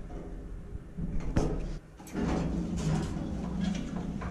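Hotel elevator's sliding doors and car moving: a sharp click a little over a second in, then a steadier sound with a low hum through the last two seconds.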